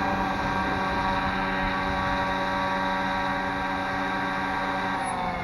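Electric motor and rotors of a scale AH-6 Little Bird RC helicopter, a steady whine while it holds a hover on GPS. About five seconds in, the pitch begins to fall as the motor slows.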